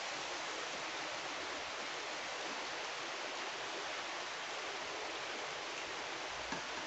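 Steady, even background hiss with no speech, and one faint tick near the end.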